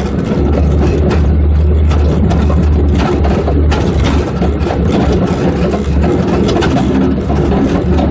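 Off-road 4x4's engine running steadily as it drives over a rough dirt track, with frequent rattles and knocks from the body and chassis over the bumps.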